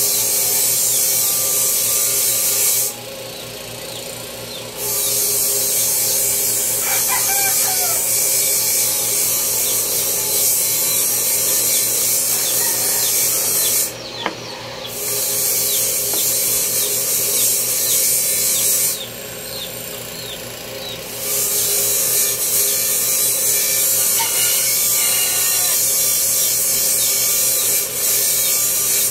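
A hand-held tool working wood, hissing in long spells of several seconds with short pauses between, likely sanding or rasping. Chickens cluck faintly in the background.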